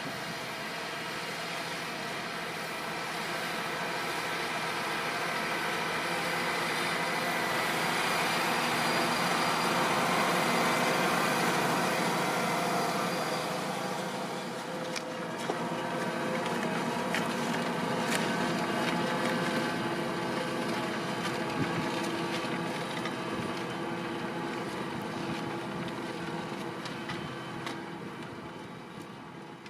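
Fendt 724 Vario tractor's six-cylinder diesel engine running under load while pulling a five-furrow Lemken plough. It gets louder to a peak about ten seconds in, eases off, rises again and fades toward the end, with a few light clicks around the middle.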